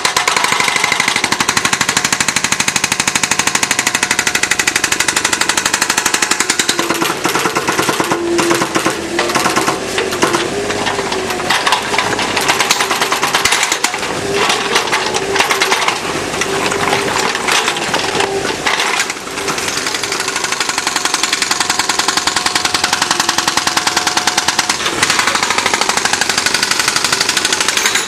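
Excavator-mounted hydraulic breaker hammering gunite pool concrete: a loud, fast, continuous rapid-fire pounding, with a steady hum underneath in the middle stretch.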